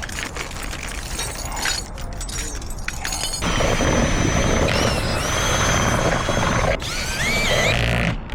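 Mechanical work on a door lock: clicking and rattling, then, a third of the way in, a louder steady mechanical whir with a thin whine that shifts in pitch.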